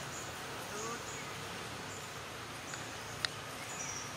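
Outdoor insects buzzing steadily, with short high chirps on and off and one sharp click about three seconds in.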